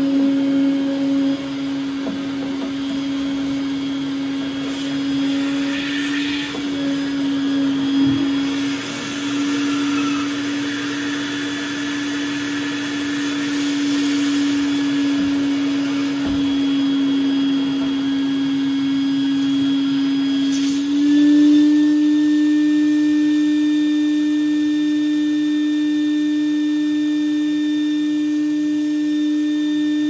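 Vacuum running steadily, sucking sludge out of a high-efficiency gas furnace's condensate trap and drain lines. About 21 seconds in, its pitch steps slightly higher and it gets a little louder.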